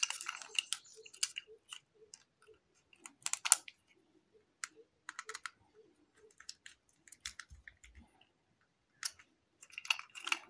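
Scattered small clicks and scrapes of hands working a plastic socket board: a screwdriver turning brass terminal screws and copper wires being handled, with a few soft low knocks near the middle.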